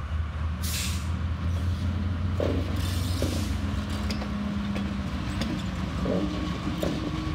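TasRail TR class diesel-electric locomotives passing slowly, their engines giving a steady low rumble with a hum. A brief hiss comes about a second in, and a few short gliding tones follow later.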